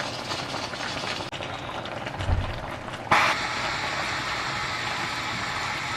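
Food bubbling at a steady boil in a pot on the stove, a little louder from about three seconds in.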